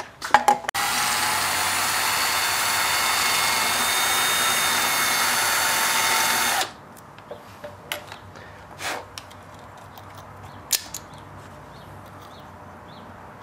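Cordless drill running steadily at constant speed for about six seconds, its bit opening up the hole in a roller chain's side plate so the half-link's pin will fit through, then cutting off suddenly. A few light clicks follow as the chain and pin are handled.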